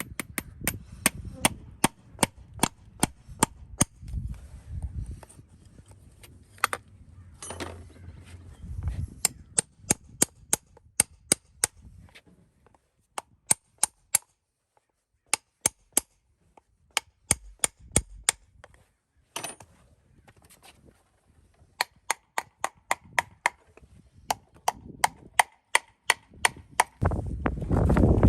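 Farrier's hammer tapping horseshoe nails: runs of sharp, ringing metal taps, about three or four a second, broken by short pauses. Near the end a louder, rough, continuous noise comes in.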